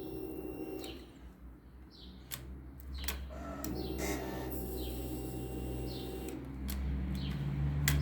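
Small birds chirping in short falling notes, several times, over a steady low hum, with a few sharp clicks in between.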